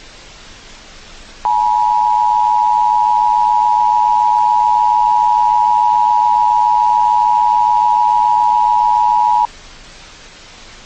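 Emergency Alert System two-tone attention signal: a loud, steady dual-pitched tone that starts about a second and a half in, holds for about eight seconds and cuts off sharply, over a constant background hiss. It is the alert tone that signals an emergency voice message is about to follow.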